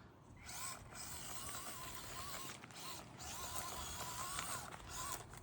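Axial SCX24 Deadbolt micro RC crawler's Injora 050 66-turn brushed motor whining as it crawls. The pitch rises and falls in short swells as the throttle is worked, over a steady scratchy noise.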